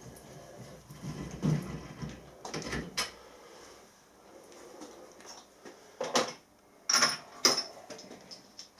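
Hand tap being turned through very hard bronze-steel weld metal, creaking and clicking in irregular bursts as it cuts. The tap is binding hard, close to snapping.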